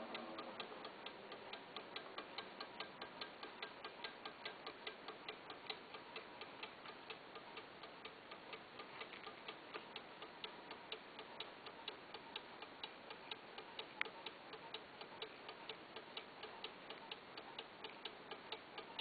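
8-day cuckoo clock ticking steadily and quietly, about two and a half ticks a second, with one sharper click about 14 seconds in.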